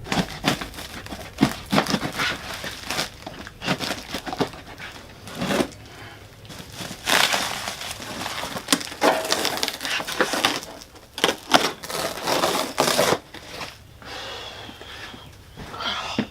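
Packing material being pulled off and crumpled by hand: irregular crackling and rustling, with short sharp crinkles between longer rustles.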